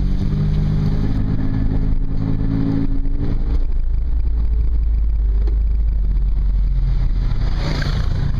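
Toyota FJ Cruiser's 4.0-litre V6 running under load off-road, heard from inside the cabin: a steady engine note for the first three seconds or so, then mostly a deep low rumble.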